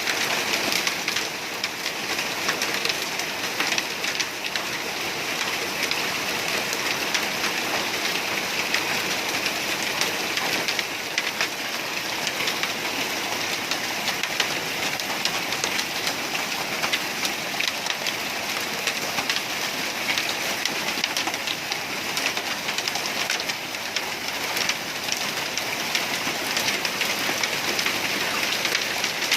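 Steady heavy rain falling: a dense, even hiss of countless drops that holds at the same level throughout.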